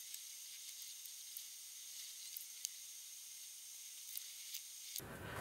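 Faint steady hiss with a few scattered soft ticks, as a paintbrush works resin into carbon fibre cloth laid in a mould.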